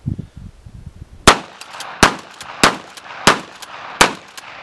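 Smith & Wesson 3000 12-gauge pump shotgun fired five times in quick succession with low-recoil buckshot, the shots about two-thirds of a second apart. Lighter clacks of the pump action being worked come between the shots.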